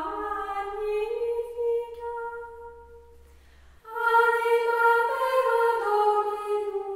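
Unaccompanied choir singing slow, long-held notes in harmony. It thins to one faint held note around the middle, and the full choir comes back in about four seconds in.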